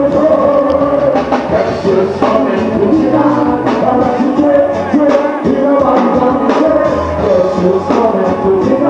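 Live reggae band playing, with drums, electric guitar and bass, and a male vocalist singing into a microphone over them.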